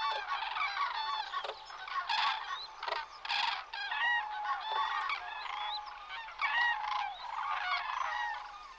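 A flock of cranes calling in flight: many overlapping trumpeting calls, rising and falling in a dense chorus.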